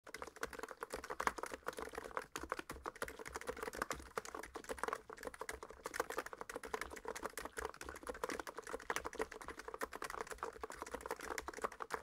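Steady, fast typing on a NiZ X99 Pro electro-capacitive keyboard with PBT keycaps: a dense, continuous stream of key strokes.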